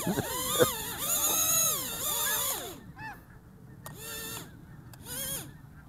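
Eachine E016H micro quadcopter's motors whining on after a low-battery auto-landing, refusing to shut off; the whine fades out about halfway through and comes back in short spells near the end. Snow geese honk in the background.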